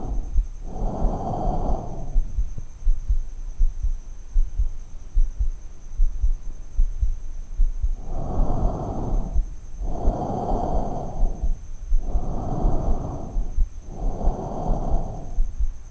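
Stethoscope recording of an adult's normal tracheal breath sound over the neck: harsh, hollow hissing of air going in and out, the breath phases separated by short silences. Two breath noises near the start, a pause of several seconds, then four more in steady succession, over low regular thumps.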